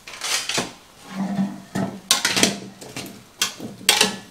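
Plastic spatula scraping and knocking against an air fryer basket as chunks of potato are turned over, a string of short scrapes and clacks that come thicker in the second half.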